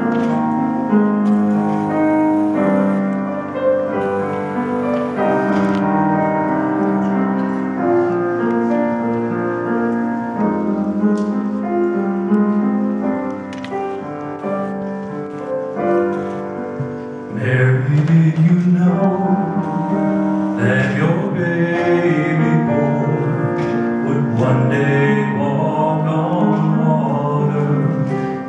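Solo piano playing a gentle introduction. About two-thirds of the way in, a male soloist starts singing over it through a handheld microphone, with the piano accompanying.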